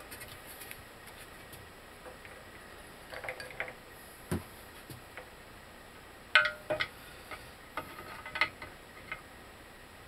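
Scattered light metallic clinks and taps of tools and parts being handled during bushing pressing, in small clusters with gaps between.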